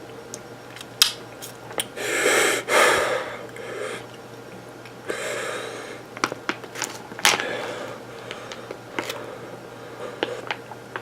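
A person breathing hard through the mouth, with two heavy breathy rushes of air and sniffs and small clicks between them, the reaction to a mouth burning from ghost pepper.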